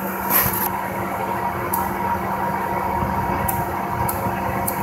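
Steady mechanical hum of an outdoor air-conditioning condenser unit. A short hiss comes about half a second in, and a few faint sharp clicks follow as a handheld lighter is worked.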